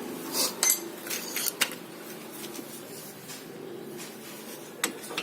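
Metal hand tools clinking and knocking against metal while working on a car's front brake caliper. There are several sharp clinks in the first two seconds and two more near the end.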